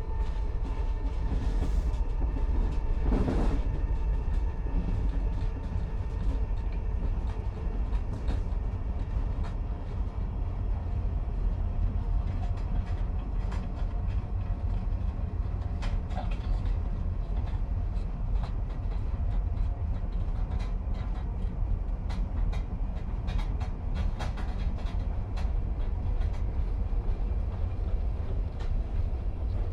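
Interior of a moving commuter train: a steady low rumble of the wheels and running gear, with scattered clicks and knocks from the rails and a faint steady hum. A short loud rush of noise about three seconds in.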